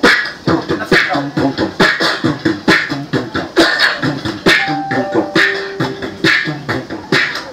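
Human beatboxing into a handheld microphone played through a small portable amplifier: a steady beat of mouth-made kick and snare sounds with bass hums. About five seconds in, a couple of short held tones come in over the beat.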